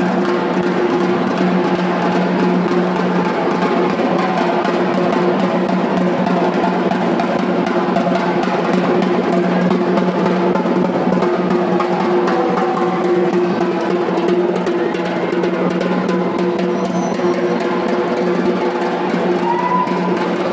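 A batucada drum band playing a fast, unbroken rhythm of dense drum strokes.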